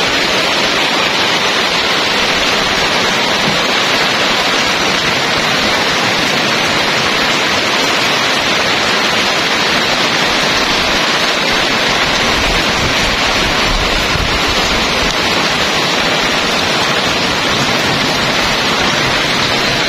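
Steady rain falling on corrugated metal roofs, an even, unbroken hiss.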